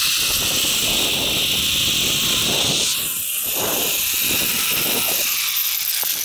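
Zip-line trolley pulley running fast along a steel cable: a loud, steady hiss with rough wind noise on the microphone, cutting off suddenly near the end as the ride slows.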